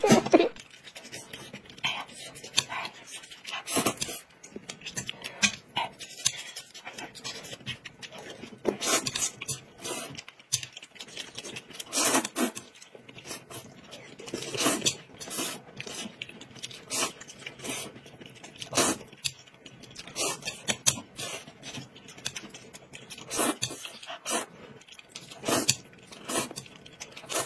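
Noodles being slurped and chewed noisily with chopsticks in close-up: short, sharp slurps and smacking mouth sounds every second or two, with low chewing noises between them.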